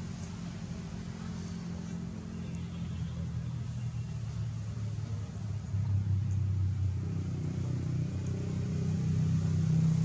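A motor vehicle's engine running with a low hum that grows louder about six seconds in and again near the end.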